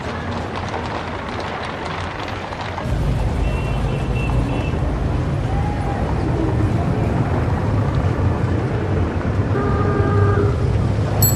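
Street-traffic ambience of a 1930s city: a dense din of traffic, with a low motor rumble that comes in about three seconds in and makes it louder. A few short pitched tones sound over it, one with several notes stacked together around two-thirds of the way through.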